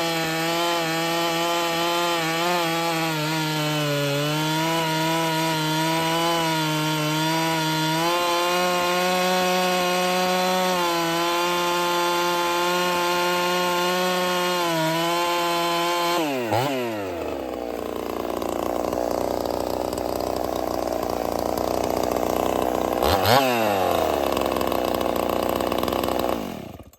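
Husqvarna 61 two-stroke chainsaw cutting wood at full throttle, its pitch dipping now and then as the chain bites; the chain is still a tad hungry, its rakers a little deep. About sixteen seconds in the engine drops to idle, is blipped once near the end, and the sound cuts off suddenly.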